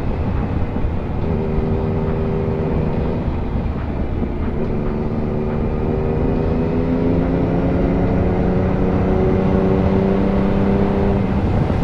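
Yamaha MT-series motorcycle engine running steadily while riding, its pitch shifting slightly a few times, over a low rush of wind noise.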